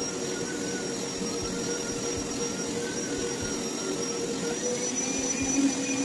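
Hoover Power Scrub carpet cleaner running: a steady motor and suction whine whose pitch wavers slightly as it is pushed over the carpet.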